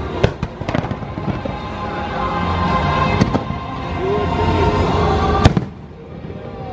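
Fireworks shells bursting in sharp bangs over loud show music. The loudest bang comes about five and a half seconds in.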